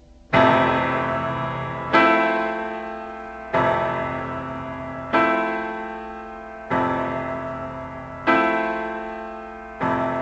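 Background piano music: a slow run of seven sustained chords, one struck about every second and a half and left to ring and fade.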